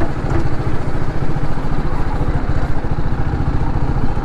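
Single-cylinder sport motorcycle engine running steadily at low revs with an even, low throb as the bike rolls slowly up to a fuel pump.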